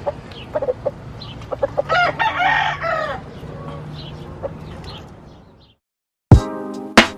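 A rooster crows once, about two seconds in, over other chickens clucking and high short peeps. The flock sound fades out after about five and a half seconds, and near the end music with a hard drum beat starts.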